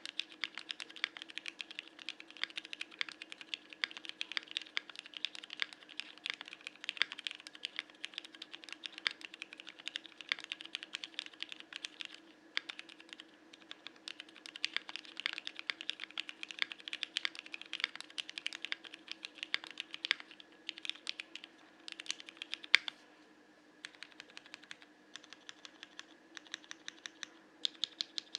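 Typing on a CannonKeys Bakeneko mechanical keyboard with Cherry MX Hyperglide Black linear switches: a fast, steady run of keystroke clacks that thins into shorter bursts, with one louder clack followed by a brief pause about two-thirds of the way through. A faint low hum sits underneath.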